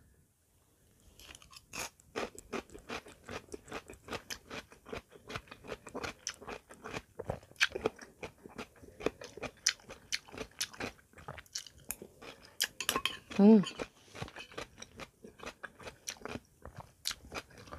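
Close-miked chewing of crunchy raw ampalaya (bitter gourd) salad: a fast, uneven run of wet mouth clicks and crunches starting about a second in, with one short vocal sound about two-thirds of the way through.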